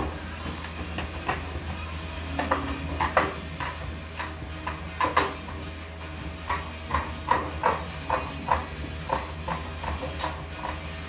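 Aviation snips cutting galvanized sheet-metal duct stack: a run of short, irregular metallic snips and clicks as the blades close through the steel, coming quicker in the second half. A steady low hum runs underneath.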